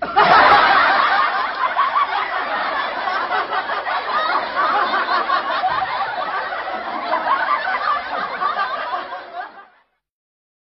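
Laugh track: many people laughing together, starting suddenly and dying away shortly before the end.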